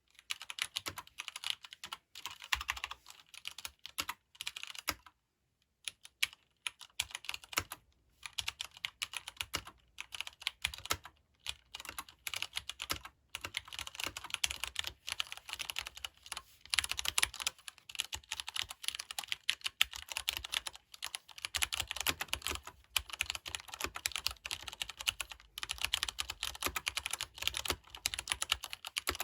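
Typing on a Leopold FC750R PD mechanical keyboard with Cherry MX Brown switches: a rapid, steady run of tactile, non-clicky key presses, with a few short pauses.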